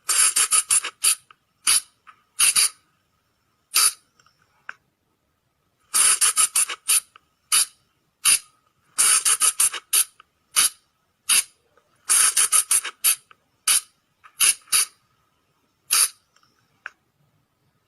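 Sunda flying lemur (colugo) giving shrill, squeaky calls. Most come in rapid clusters of several notes, with single or paired notes in between and short silences separating the groups.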